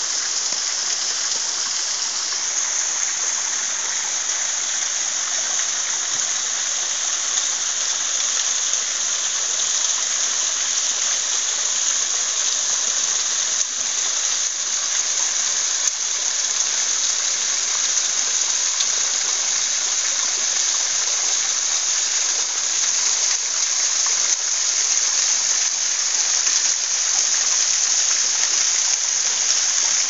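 Low-flow mountain waterfall: thin streams of water falling and splashing down a rock face, a steady hiss that grows slightly louder toward the end.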